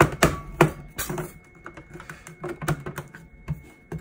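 Hard plastic clicks and knocks from the side filament-bay cover of a FlashForge Adventurer 3 3D printer being pressed and handled: an irregular run of taps, loudest in the first second.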